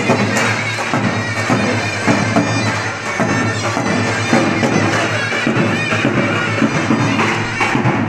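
Wedding music: a shrill, reedy wind instrument plays a melody over drum beats, in the manner of Turkish zurna and davul.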